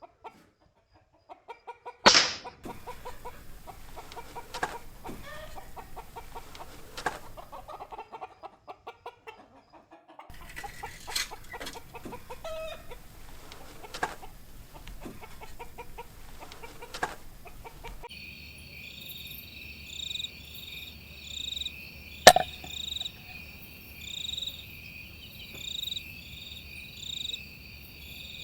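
Night ambience cut from several clips: irregular short clucking calls and clicks, then steady cricket chirping. About 22 seconds in comes one sharp crack, the report of a PCP airgun shot.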